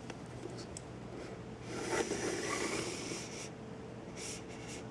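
Soft rustling handling noise for about a second and a half, starting about two seconds in, as the laptop's lid is pushed further open. A faint steady hum lies underneath, and a couple of faint clicks come near the end.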